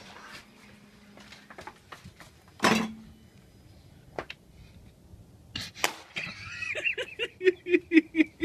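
A laptop being thrown out of an upstairs window. A single loud, sharp bang about a third of the way in is followed by a couple of fainter knocks, and then laughter in quick rhythmic bursts near the end.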